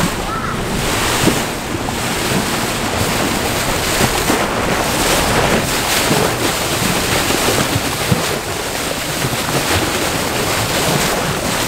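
Steady wind buffeting the microphone over the rush and splash of water along the hull of a moving boat.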